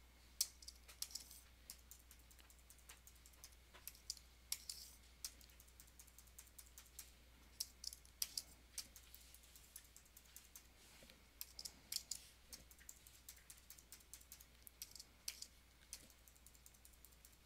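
Faint, irregular clicking of computer keyboard keys, several presses a second with some quick runs: a keyboard shortcut (Command-period) being pressed over and over.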